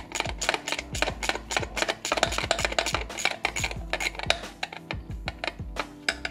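Background music with a busy, clicky percussive beat over a steady bass line.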